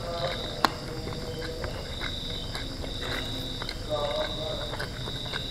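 Crickets trilling steadily in the background, one high continuous trill with a few short breaks, over soft clicks of fingers mixing rice on a plastic tray. A single sharp click comes about half a second in.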